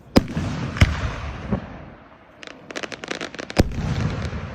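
Aerial fireworks bursting overhead: two sharp booms in the first second, a softer one about a second and a half in, then a quick run of crackling pops, and another loud boom near the end.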